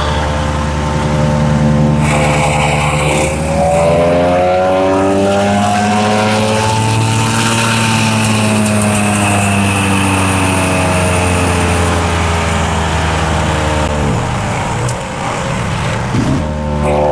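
Small gasoline engine on a MechMaxx 6-inch wood chipper running steadily, then revving way up over several seconds and slowly dropping back before settling to a steady run again near the end. The rev-up comes from a dragged limb catching the engine's throttle, a sign of an unsafe operating condition.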